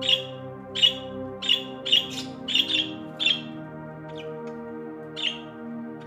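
Parrot giving short, sharp, falling chirps: about nine quick calls in the first three and a half seconds, then one more about five seconds in, over soft background music with long held notes.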